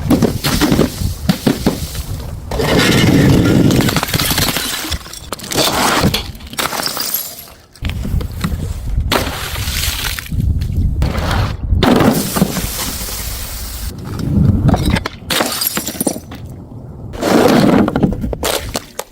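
Glass bottles smashing one after another: a run of loud shattering crashes, each with a crunchy, tinkling tail of breaking glass.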